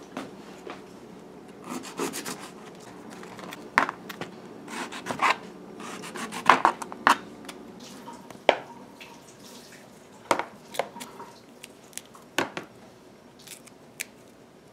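A small kitchen knife scraping and cutting the tough skin off pieces of breadnut (catahar) while peeling by hand: irregular scrapes and sharp clicks, the loudest about six and a half seconds in.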